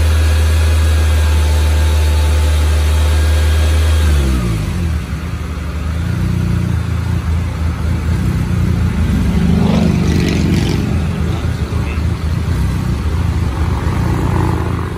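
The supercharged 2.0 L LSJ four-cylinder engine of a Chevy Cobalt SS running with a steady low drone. Its pitch falls away about four seconds in as the revs drop, and it runs more unevenly after that, with a short rising whine near ten seconds.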